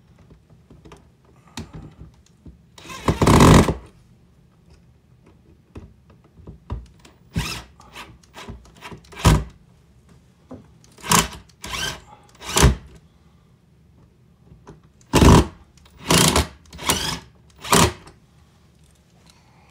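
Cordless drill/driver run in a series of short bursts, each under a second, the first and longest about three seconds in, driving the mounting screws of a light switch into its electrical box.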